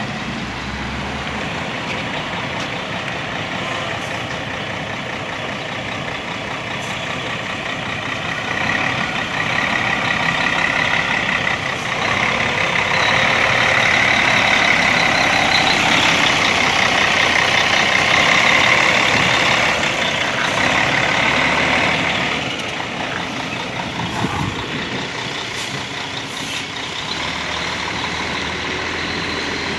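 Mercedes-Benz bus diesel engine running, growing louder about a quarter of the way in and easing back about three quarters of the way through.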